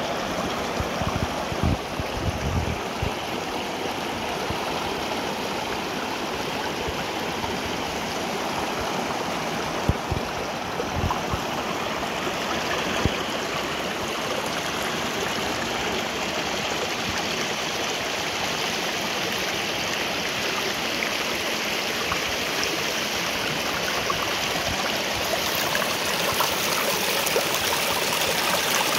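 Shallow mountain stream running over rocks, a steady rush of water spilling between stones. It gets slightly louder near the end.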